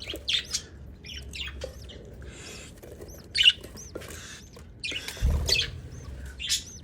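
Budgerigars chirping and squawking in a string of short, high calls, with a low bump about five seconds in.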